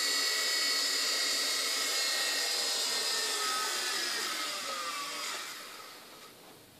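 Small electric motors and rotors of an MJX F-Series mini RC helicopter running with a high whine and whir, then falling in pitch and dying away over the last two seconds or so as it comes down and spins down on the floor.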